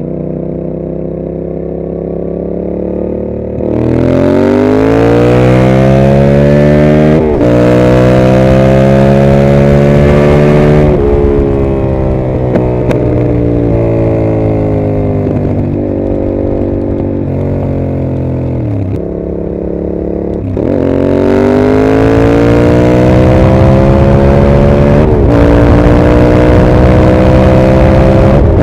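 2021 Yamaha MT-07's parallel-twin engine through a Mivv GP aftermarket exhaust, ridden and accelerating hard. The pitch climbs under throttle, with brief breaks and drops at the upshifts. It eases off through the middle, then pulls up through the revs again about two-thirds of the way in.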